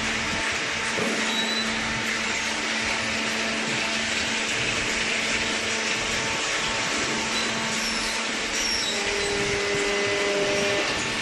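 Industrial cardboard shredding machinery running with a steady noise of motors and rushing air. A low hum in it fades a few seconds in, and a higher tone sounds briefly near the end.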